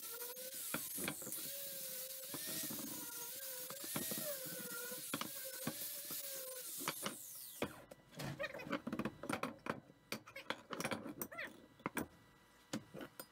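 Angle grinder with an abrasive disc grinding steel square tubing: a steady hiss over a motor whine whose pitch wavers as the disc bites. About eight seconds in the grinder is switched off and winds down, followed by a string of sharp clanks and knocks of metal pieces handled on a wooden bench.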